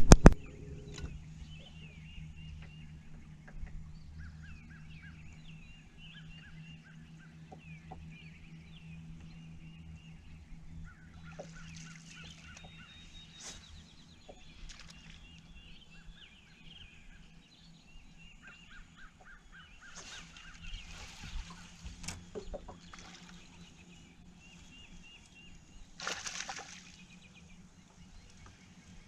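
Birds calling in several runs of short, rapid notes over a steady low hum.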